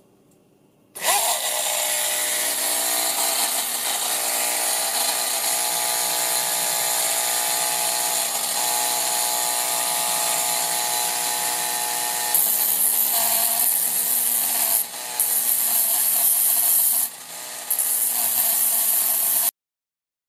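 Handheld rotary tool with a small cutoff disc spinning at high speed and cutting into an aluminium housing cover: a steady high whine with a hissing grind. It starts about a second in, gets louder about two-thirds of the way through, dips briefly twice, then stops abruptly.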